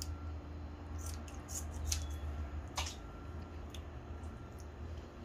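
Kitchen shears snipping through raw chicken skin and fat, trimming the excess: several sharp snips in the first three seconds, over a steady low hum.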